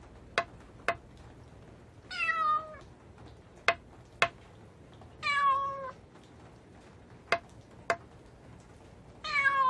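A domestic cat meowing three times, each meow about half a second long and falling slightly in pitch. Between the meows come three pairs of sharp knocks, each pair about half a second apart.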